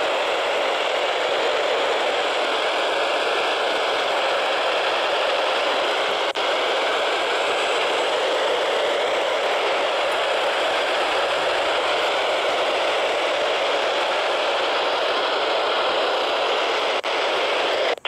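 Midland emergency weather radio's speaker hissing with steady static while tuned across the NOAA weather band, with no clear station coming through. A few faint clicks can be heard as the tune buttons are pressed.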